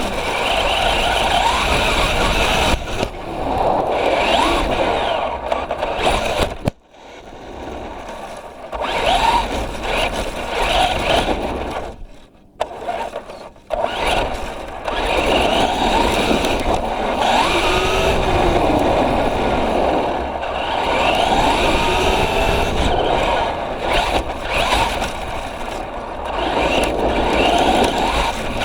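Traxxas Rustler 4x4 RC truck driving, its electric motor whining up and down in pitch as it speeds up and slows, over rough tyre and drivetrain noise. The sound drops away briefly about seven seconds in and again about twelve seconds in.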